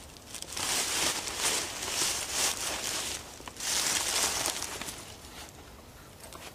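Footsteps crunching and rustling through dry fallen leaves in a run of uneven bursts, dying away about five seconds in.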